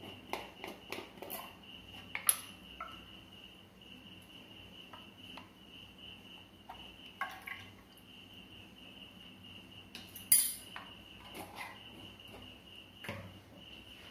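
A spoon clinking and tapping against a metal pressure cooker pot as ghee is spooned into the milk: scattered light clinks, with two sharper ones about two seconds in and about ten seconds in, over a steady high-pitched chirring.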